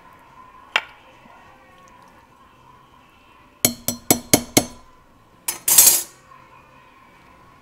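Metal slotted spoon knocking against a pot while serving short ribs. There is a single clink just under a second in, then a quick run of about five clinks with a short metallic ring. A louder scrape comes near six seconds.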